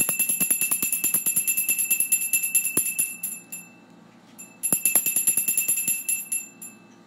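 Altar bells shaken in a rapid, jingling ring that stops about three and a half seconds in, then ring again for about two seconds after a short pause. These are the bells rung at the elevation of the host at the consecration of the Mass.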